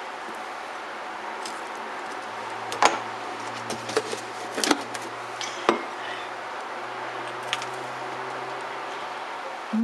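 A few light, sharp clinks on a ceramic plate, three of them clearer than the rest, spread over a few seconds. A faint low steady hum comes in about three seconds in.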